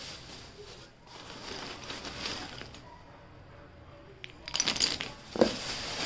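Hard, dry clay biscuits clinking and clattering against each other as a handful is scooped out of a plastic bag, with plastic rustling. It is faint at first, then a quick run of clinks about four and a half seconds in is the loudest part.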